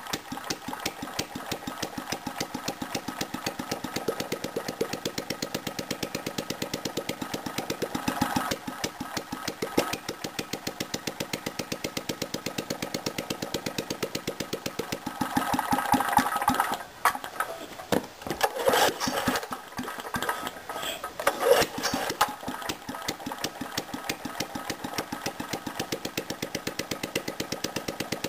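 Small single-cylinder BSA slanted-cylinder stationary engine running in a rapid, even firing beat, with a few louder, uneven surges past the middle. It runs poorly because the carburettor float sticks and the throttle does not work, so the fuel has to be fed by hand to keep it from flooding.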